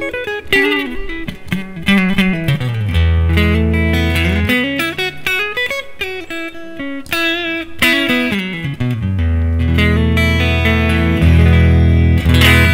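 Clean electric guitar on the neck single-coil pickup of a Tokai AST-52 Goldstar Sound HSS Stratocaster-style guitar, playing single-note phrases with vibrato and letting low notes ring, twice held for a few seconds. The tone is very crisp.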